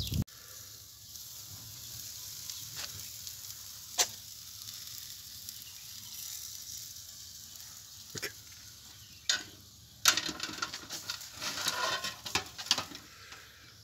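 Hot chicken kebab (juje kebab) sizzling on metal skewers just out of a tandoor, a steady hiss with a few sharp clicks. From about ten seconds in, the metal skewers clatter and scrape against a tray as they are handled.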